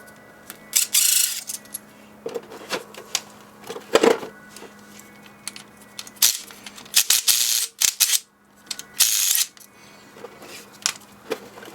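Steel transfer-case bolts clicking and scraping as they are pushed one by one through a piece of cardboard, heard as several short rustling scrapes with light metallic clicks between them.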